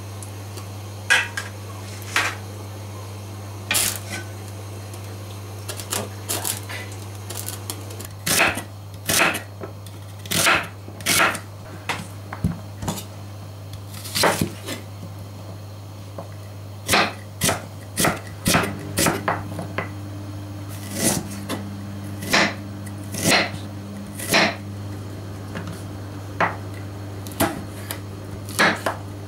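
Kitchen knife chopping onion and red chili pepper on a wooden cutting board: sharp, irregular knocks of the blade hitting the board, a few at first, then in quick runs of several a second. A steady low hum runs underneath.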